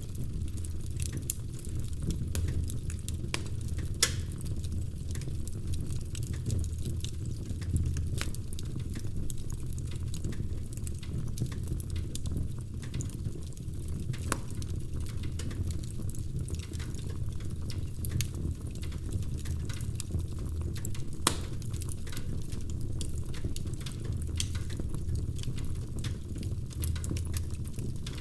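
Wood fire burning in a fireplace, crackling with frequent small pops and a few sharper snaps over a steady low rumble.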